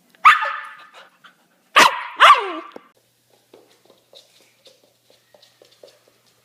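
A dog barking three times, each bark sliding down in pitch, the last two close together. Faint light clicks follow.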